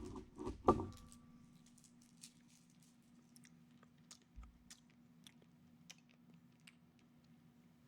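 Faint mouth sounds of a person sucking on a menthol cough drop: small wet clicks and smacks scattered through, after a couple of louder short sounds in the first second.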